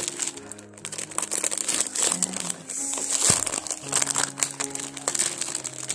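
Clear plastic wrapping crinkling and crackling in irregular bursts as hands pull it off a drawing pencil set, over background music with sustained low notes.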